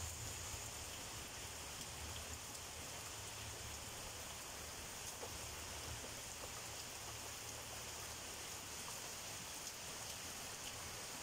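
Heavy rain falling steadily on leaves and roofs, an even hiss with a few close drops ticking. A low rumble sits under it in the first half.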